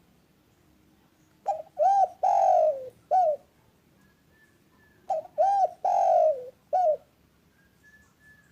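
Spotted dove (derkuku) cooing its song, two phrases a few seconds apart. Each phrase has four notes, the third one longer and falling in pitch.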